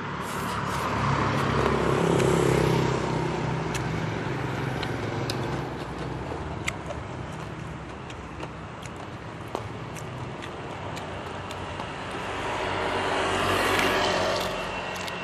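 Street traffic: vehicles passing on the road, over a steady traffic hum. One swells past about a second in and another near the end, with scattered light clicks in between.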